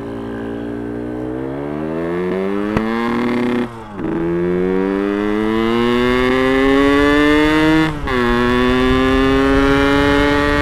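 Yamaha RX-King's single-cylinder two-stroke engine accelerating under way, its note rising steadily in each gear. It drops out briefly twice, about a third and three quarters of the way in, as the rider shifts up.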